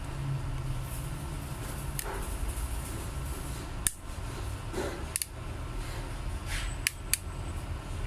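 Plastic housing clips of a Cherry Mobile Flare Y3 snapping free as a pry tool is worked along the case seam: a handful of sharp clicks at irregular intervals, two close together near the end, over a steady low fan hum.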